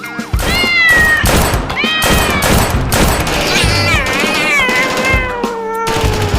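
Cat meowing several times in drawn-out calls that bend in pitch, the last one long and slowly falling, over background music.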